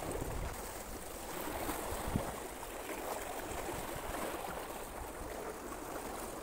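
Steady wash of small waves and lapping water, with one short knock about two seconds in.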